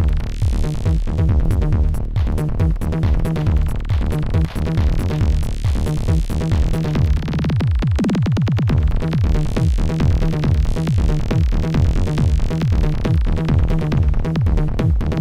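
Electronic music from an Amiga demo soundtrack, with a steady driving beat and dense low notes. About eight seconds in, a low sweep falls in pitch.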